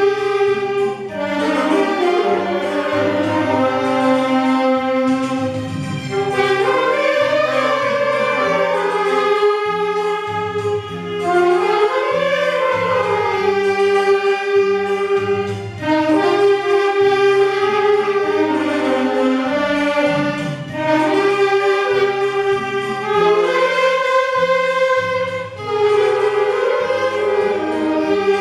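Beginner saxophone ensemble playing a piece together: held melody notes moving every second or so over sustained low notes.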